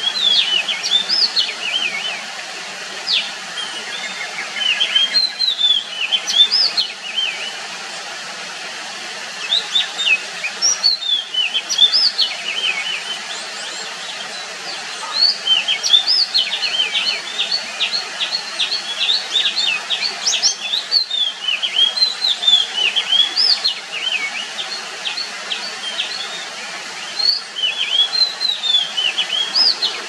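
Wild Oriental magpie-robin singing: phrases of clear, varied whistles and quick rising and falling notes, broken by short pauses, over a steady background hiss.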